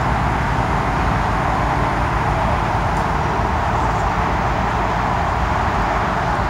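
Steady outdoor background noise of distant car traffic, with a low, uneven rumble of wind on the microphone and no distinct engine note.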